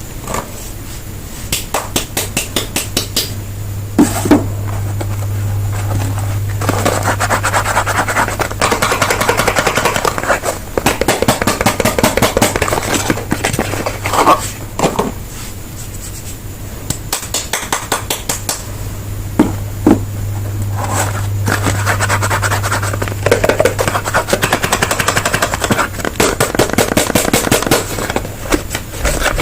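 Dry soap being handled and broken up by hand: rapid runs of crisp clicks and crackles with a few sharper knocks. A low steady hum comes and goes twice.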